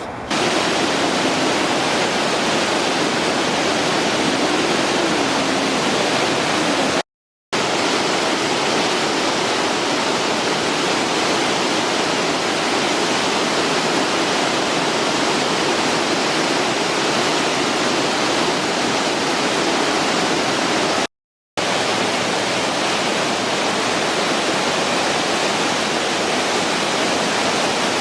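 Steady rushing of a 25-foot waterfall close by, the Spout falls, broken twice by brief dropouts to silence, about seven and twenty-one seconds in.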